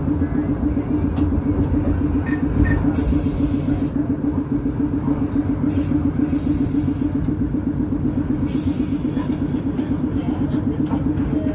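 New Orleans St. Charles line streetcar running along its tracks, heard from on board: a steady rumble with a constant low drone.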